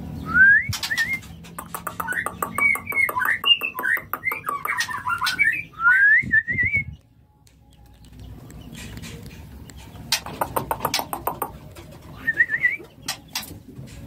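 White-rumped shama (murai batu) singing: rising whistled phrases mixed with fast runs of sharp clicking ticks. A first bout lasts about seven seconds, then after a short lull a second, briefer bout of ticks and one more rising whistle.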